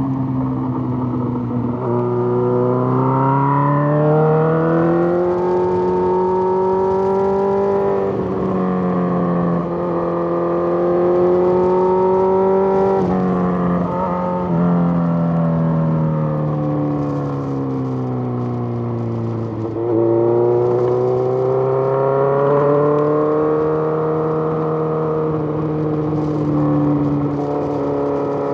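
Suzuki GSX-R1000 sport bike's inline-four engine under way, its note climbing under throttle, dropping sharply at gear changes and falling away as it slows. The main dips come about two, eight, thirteen and twenty seconds in, each followed by a fresh rise.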